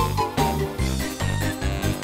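Instrumental cartoon music with a steady pulsing beat and a melody over it.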